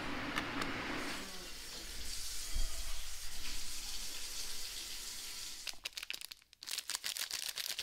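Water poured from a plastic bottle into a pot, ending about a second in, then a steady hiss, then a plastic bag crinkling in quick rustles near the end.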